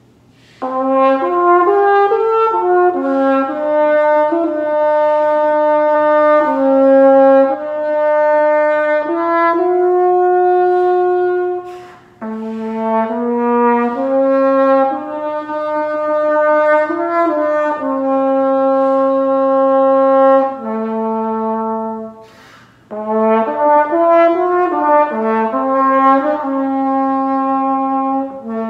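A small baby French horn played solo: a slow melody of held notes in three phrases, with short breaks for breath about twelve and twenty-two seconds in.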